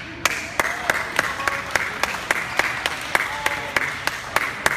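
Spectators clapping in a steady rhythm, about three claps a second, over crowd voices.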